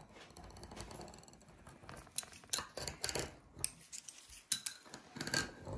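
A kitchen bowl handled on a floured work surface and pressed down into rolled dough to cut a round: soft scraping, then several separate light knocks and clicks.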